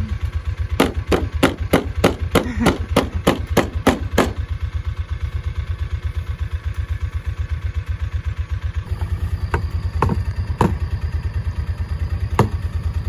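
Small utility vehicle's engine running steadily with a low, even throb. Over it come a quick series of about a dozen sharp rattling clacks between about one and four seconds in, and a few single knocks later.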